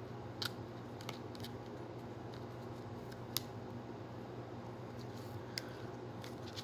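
A few sharp, light clicks and taps of small merchandise items and packaging being handled, over a steady low hum.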